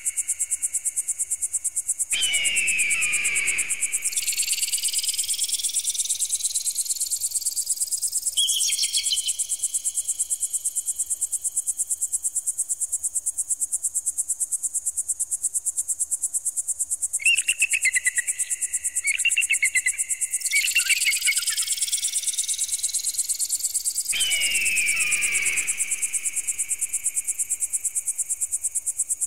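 Layered pigeon-deterrent sound effect: a fast, high-pitched pulsing trill runs throughout. Twice, a tone sweeps slowly upward through it. Two long descending shrill screeches, about 2 s and 24 s in, and several bursts of shrill repeated calls are mixed in.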